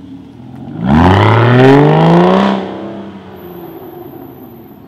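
Aston Martin Rapide's 5.9-litre V12 on its stock exhaust, accelerating hard as it pulls away: a sudden loud surge about a second in, the pitch climbing for about two seconds, then fading as the car drives off.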